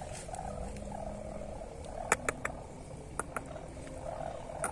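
A steady pulsing chorus of frogs calling. A few sharp clicks come in about two seconds in and again near three seconds and near the end, the first of them the loudest sound.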